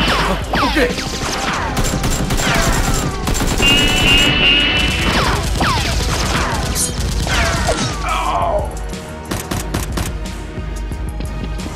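Gunfire sound effects laid over action background music, with repeated falling, whistle-like swoops. Rapid bursts of shots come thick and fast in the last few seconds.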